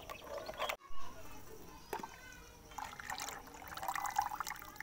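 A metal ladle stirring a thin buttermilk-and-lentil-paste kadhi mixture in an aluminium pot: liquid sloshing and swirling, with a few light clicks of the ladle against the pot.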